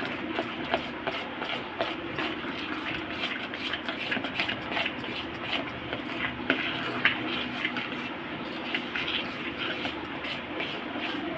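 A spoon stirring thick rice and urad dal batter in a steel bowl, a steady run of irregular clicks and scrapes against the bowl's sides.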